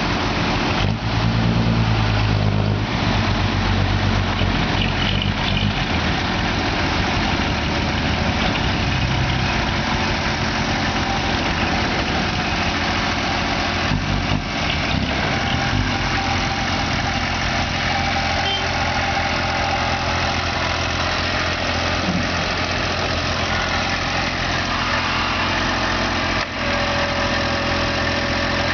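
Small excavator's diesel engine running steadily, its low note louder and fuller about one to three seconds in.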